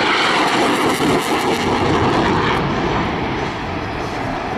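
Blue Angels F/A-18 Hornet jet engines in afterburner during a high-G turn: loud, steady jet noise that eases a little after about three seconds.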